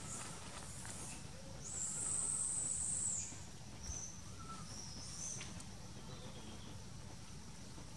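Outdoor ambience: a high-pitched buzz starting about two seconds in and lasting about a second and a half, then two short high chirps, over a low steady hum.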